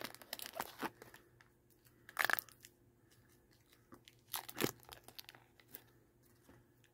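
Peanut butter cup's wrapper and fluted paper liner being handled and peeled off: short crinkles and rustles, with two louder rips about two seconds in and again about four and a half seconds in.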